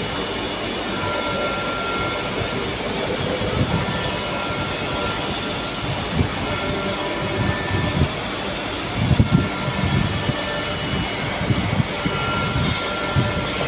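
Vibratory stress relief exciter, an electric motor with an eccentric weight clamped to a large steel ring, running steadily and shaking the workpiece with a constant mechanical rumble, with irregular low knocks in the second half.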